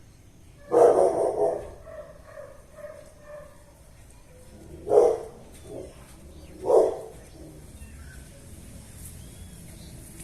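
A dog barking: one loud bark about a second in, trailing into a few quieter yelps. Two more single barks follow, about five and seven seconds in.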